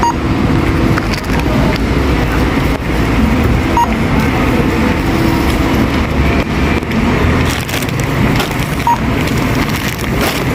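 Supermarket checkout ambience: a steady murmur of shoppers' voices and the clatter of goods being handled, with a barcode scanner at the till beeping a short single beep every few seconds, about three times, as items are scanned.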